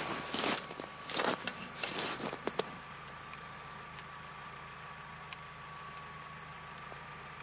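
A few short rustling, crunching noises in the first couple of seconds, then a steady low mechanical hum with a thin, high, steady whine.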